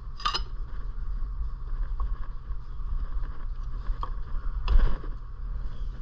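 A few sharp metal clinks of hand tools working on the flywheel of a Predator 212cc single-cylinder engine, the loudest near the end, over a steady low rumble.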